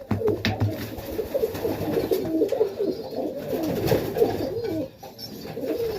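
Several pigeons cooing together, overlapping throaty calls throughout, with a few light clicks of movement.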